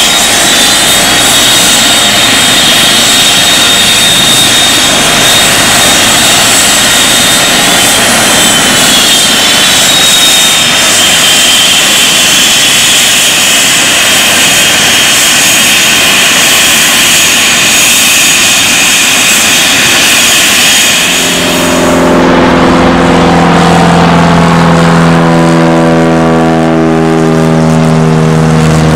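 Eurocopter EC135 helicopter running on the ground: a steady turbine whine over even rotor and engine noise. About 22 seconds in, this cuts off abruptly to the steady drone of a small single-engine propeller plane flying overhead, its pitch shifting slightly.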